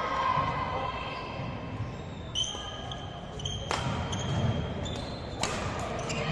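Indoor basketball game: sneakers squeaking in short high tones on the court floor and the ball bouncing, with two sharp slaps about two-thirds of the way through and a shout at the very start.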